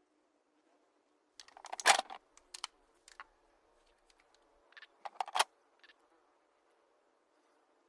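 SVD rifle being handled: groups of sharp mechanical clicks and clacks, the loudest about two seconds in and another group about five seconds in, typical of working the action or fitting a magazine between shots.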